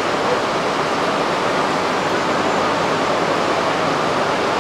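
Steady, even rushing noise of a Shinkansen train's equipment running while it stands at the platform with its nose open for coupling.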